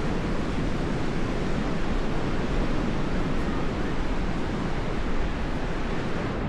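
Steady rush of sea surf and wind, with a low rumble of wind buffeting the microphone.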